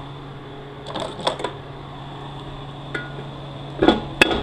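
Metal tools clinking on steel transmission parts, then two sharp metal-on-metal strikes near the end, from a hammer on a bushing driver at the 6L80E pump bushing. A steady low hum runs underneath.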